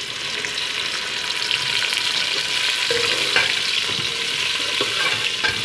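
Chopped okra hitting hot oil in an aluminium pot and sizzling loudly, starting as the okra drops in. It is then stirred with a slotted metal spoon, with a few light knocks against the pot.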